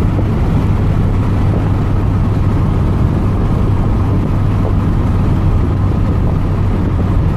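Steady road and engine rumble of a moving car heard from inside the cabin, with a constant low hum.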